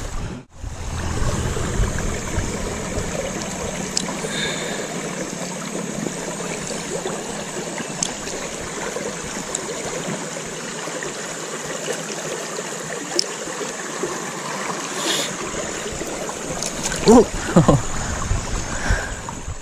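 Shallow, fast-flowing river water running steadily over rocks close by, a continuous rush and gurgle.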